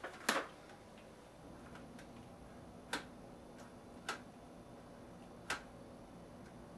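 A few sharp, short clicks, irregularly spaced a second or more apart, over a faint low hum.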